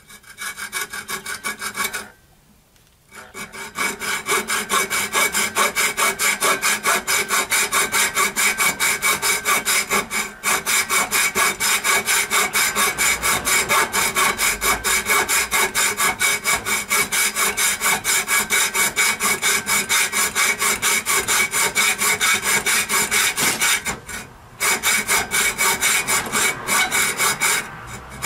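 Hand hacksaw cutting through 1-inch square metal stock in quick, steady back-and-forth strokes, with a ringing metallic tone. The sawing stops briefly about two seconds in and again near the end.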